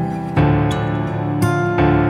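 Calm instrumental background music, held notes with a new chord struck about every half second to a second.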